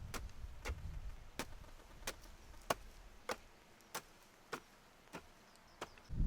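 Evenly spaced sharp knocks, about three every two seconds, like steady chopping.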